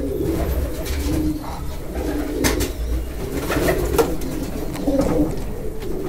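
Homing pigeons cooing, a series of low coos about one a second, with a few short taps in between.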